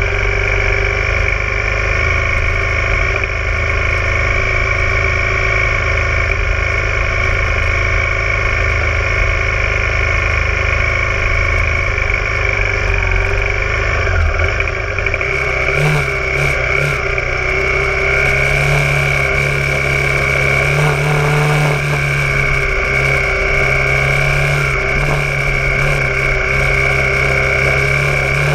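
Honda Tornado 250's single-cylinder four-stroke engine running steadily while riding, its note shifting about halfway through.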